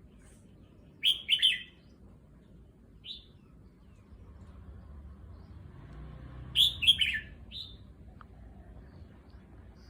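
Red-whiskered bulbul singing two short bursts of quick, warbled notes, about a second in and again about six and a half seconds in. Each burst is followed by a single call note.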